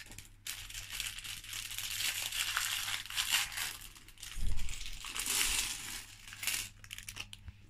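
Small plastic bags of Lego pieces crinkling as they are handled and opened, with a dull thump about halfway through.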